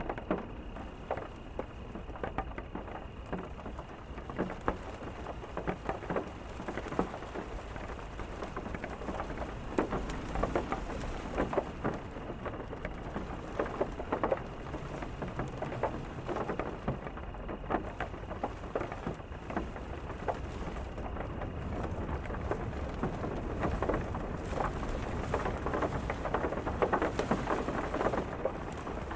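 Steady rain, with many distinct drops striking close by over a low rumble, getting a little heavier near the end.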